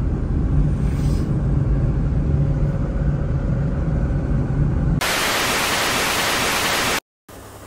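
Car cabin noise while driving: a steady low road-and-engine rumble with a constant hum. About five seconds in it switches abruptly to a loud hiss of TV static for about two seconds, which cuts off suddenly.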